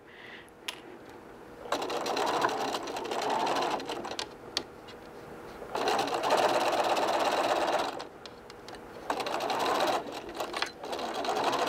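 Sewing machine stitching a seam through layers of fabric, running in about four short runs with brief stops between.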